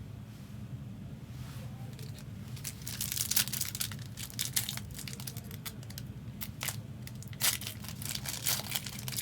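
A 2023 Panini Donruss Elite WWE trading card pack wrapper being torn open and crinkled by hand: a run of irregular sharp crackles starting about two and a half seconds in, over a steady low hum.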